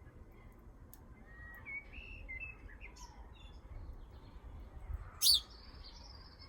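Garden birds chirping, with short twittering notes, then one loud sharp call about five seconds in followed by a thin, high held note.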